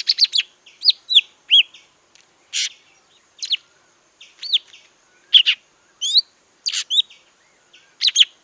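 Golden-fronted leafbird calling: an irregular series of short, high chirps and whistles, many of them curved, slurred notes, mixed with a few harsher, scratchier notes, roughly one or two a second.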